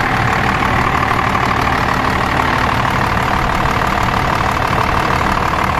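12-valve Cummins 5.9-litre inline-six turbodiesel idling steadily, heard close up in the open engine bay.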